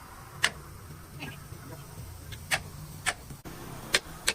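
Sharp, short knocks, about five at irregular intervals, the loudest about half a second in, over a low steady hum.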